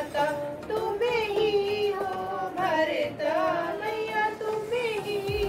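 Women's voices singing a Hindu devotional hymn to Goddess Durga, drawn out in long, wavering held notes.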